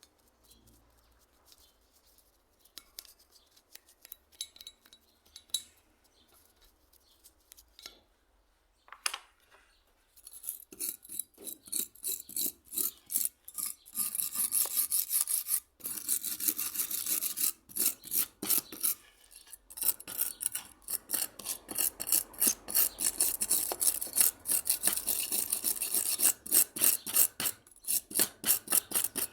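Hand abrading strokes on a hand plane part being restored: a few faint scrapes at first, then about ten seconds in, fast back-and-forth rubbing, several strokes a second, with two short pauses.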